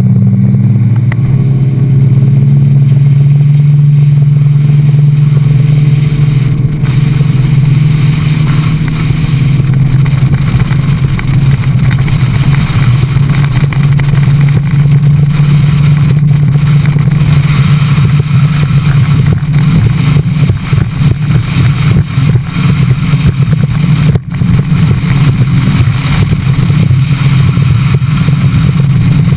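Bass boat's outboard motor running steadily at speed, with a loud, low drone and rushing air and water over the hull.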